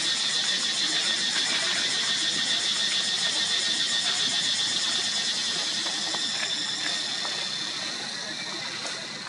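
Cicadas droning, a loud, high, steady pulsing buzz that fades over the last few seconds.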